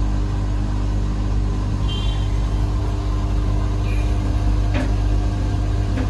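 Samsung Ecobubble Digital Inverter 8 kg front-loading washing machine in its final spin cycle, its drum spinning with a steady low hum and a steady whine above it.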